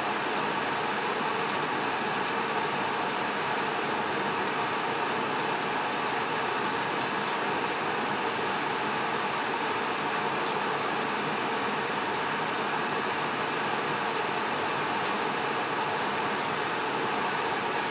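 1990 Heil gas furnace running with its burners lit and blower fan on: a steady, even rushing noise. The owner believes a faulty thermostat is shutting the burners off once the furnace gets hot.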